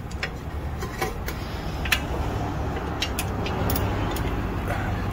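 Ratchet wrench clicking now and then as it backs out a loosened 18 mm brake caliper bracket bolt, over a steady low rumble.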